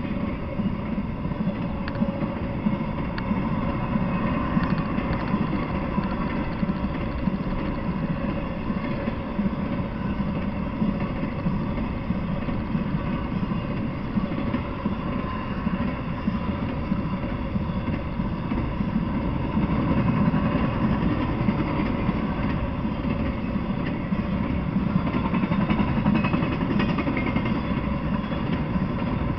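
Intermodal freight train of trailer-carrying flatcars passing at speed: a steady rumble of wheels on the rails with no pauses.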